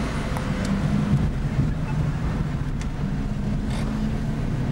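Car engine and road noise heard from inside the cabin while driving, a steady low drone.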